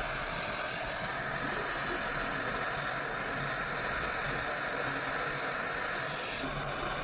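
Jeweller's soldering torch flame hissing steadily.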